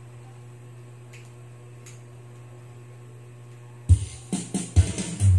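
A low steady hum, then about four seconds in a karaoke backing track starts suddenly from the Platinum karaoke player, with a strong beat.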